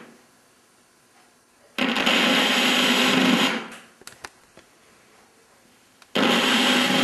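Untuned television static: loud, even white-noise hiss from a TV set's speaker on a channel with no usable signal. It comes in two stretches, about two seconds long a couple of seconds in and again near the end, with quiet and a few faint clicks between.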